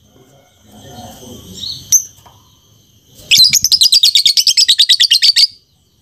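Fischer's lovebird giving a single sharp chirp, then about a second later a fast rattling chatter of roughly ten sharp notes a second for about two seconds that stops abruptly: the 'ngekek' chatter kept lovebirds are prized for.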